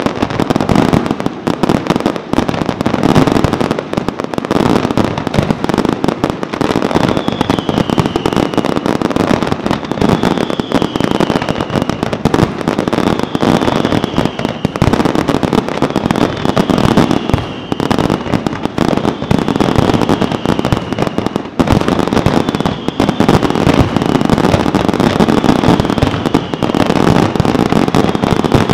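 Dense barrage of aerial firework shells bursting without pause, many overlapping bangs and crackles running together. From about a quarter of the way in, a faint falling whistle-like tone repeats every few seconds beneath the bangs.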